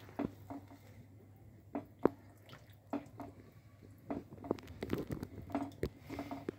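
Spatula stirring watery khichuri of rice, lentils and vegetables in a nonstick pan: soft sloshing and squelching with irregular light taps against the pan, one sharper tap about two seconds in.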